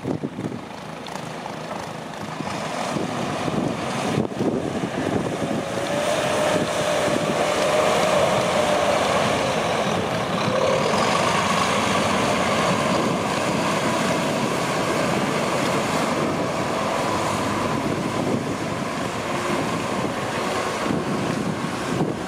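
Mack snowplow truck's diesel engine running under load as it pushes snow with its front plow. It grows louder over the first several seconds and stays loud as the truck turns close by.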